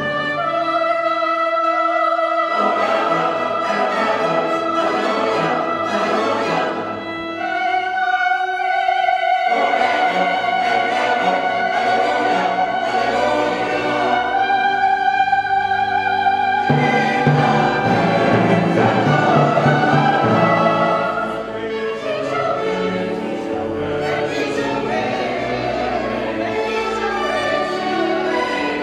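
Choir singing with orchestra in classical sacred music: three long held notes, each a step higher than the last, then a busier passage from about halfway through.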